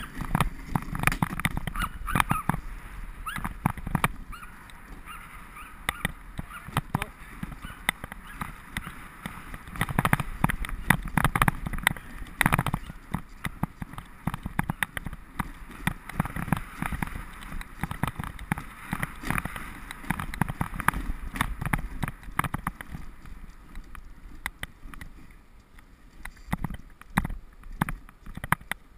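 Wooden dog sled being pulled over a snowy trail: a steady scraping hiss from the runners on snow, with frequent knocks and rattles as it bumps along. It eases somewhat near the end.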